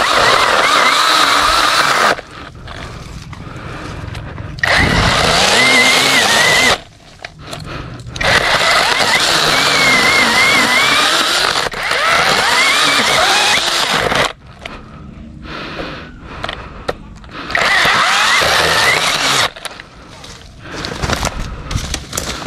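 KEELAT 8-inch battery-powered mini chainsaw cutting longan tree branches, run in about five bursts of two to three seconds with short pauses between. Its motor whine wavers and dips in pitch as the chain bites into the wood.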